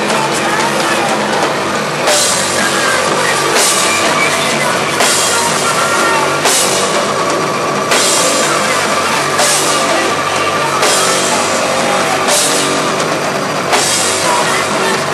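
Live rock band playing loud, dense music with a full drum kit, the crash cymbal hit about every second and a half.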